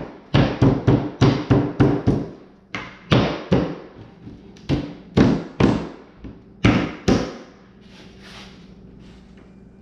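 Fist pounding on the top panel of a knockdown sofa's wooden frame to seat the panel: quick runs of sharp knocks, about four a second, that stop about seven seconds in.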